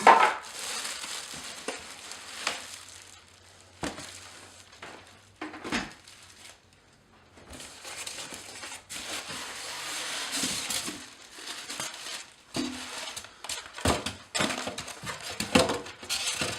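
Packaging being pulled apart in unboxing: styrofoam packing and wrapping rustling and crinkling, with a few sharp knocks as parts are handled and set down.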